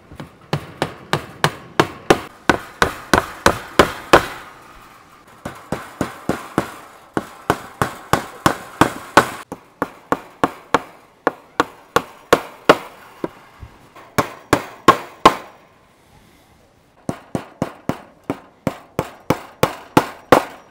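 A hammer driving big-headed nails through wire into a wooden coop frame: quick runs of sharp blows, about three or four a second, in about five bursts with short pauses between them.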